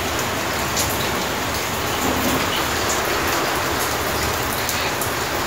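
Water at a full rolling boil in a homemade riveted metal mug over an alcohol stove: a steady bubbling hiss with scattered small pops.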